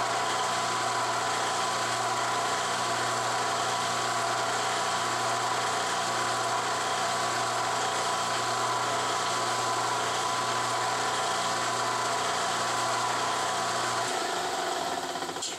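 Benchtop mill-drill running at a steady speed, its motor humming with a whine over it, loud. About 14 seconds in the motor is switched off and spins down.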